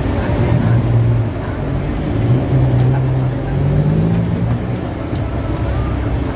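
A low engine drone, its pitch rising slowly for a couple of seconds in the middle, over a steady hiss of oil sizzling as dough sticks fry in a wide pan.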